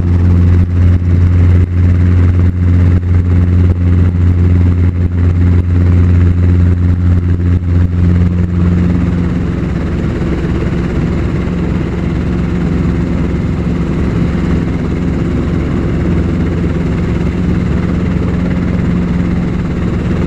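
Helicopter rotor and engine heard from inside the cabin: a steady low drone with a fast, even pulsing from the rotor. About halfway through, the deep drone softens and the sound becomes quieter and smoother.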